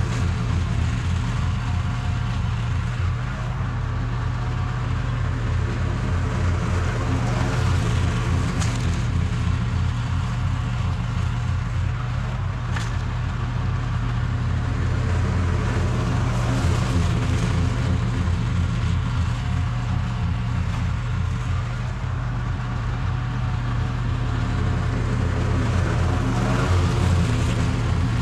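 Toro TimeCutter SS4260 residential zero-turn mower running steadily while mowing, its engine humming evenly, with the noise of the cutting swelling and fading every few seconds.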